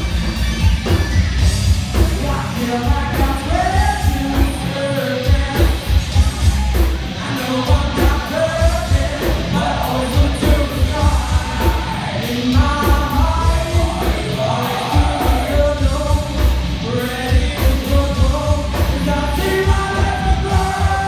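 A rock band playing live, with a singer coming in about two seconds in over a steady, heavy beat.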